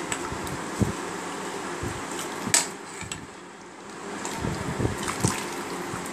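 Water sloshing and pouring in a steel pot as rice and moong dal are washed, with a few sharp clinks of steel.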